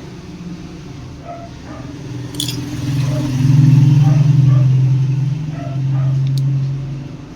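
A motor vehicle's engine running as it passes, a low hum that swells to its loudest around the middle and eases off near the end, with two sharp clicks along the way.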